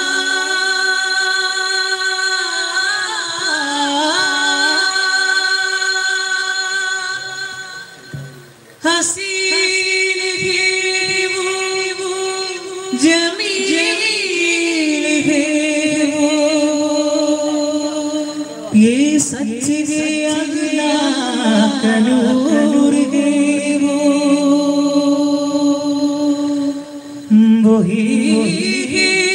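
A man singing unaccompanied into a microphone over a PA, holding long, ornamented notes that slide from one pitch to the next. The singing breaks off briefly about eight seconds in, and a few sharp hits cut through later on.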